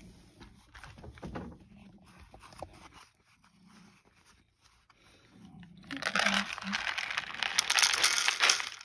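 Dry cat food kibble rattling out of a cardboard box and pattering onto a wooden plate, starting suddenly about six seconds in as a dense stream of tiny clicks. Before that only faint shuffling.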